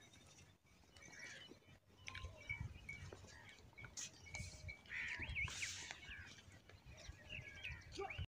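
Birds chirping and whistling now and then, busiest about five to six seconds in, over a faint low rumble.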